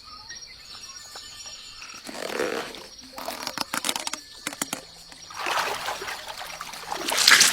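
Water splashing and trickling in a pond: scattered small splashes and drips, then a louder splash near the end.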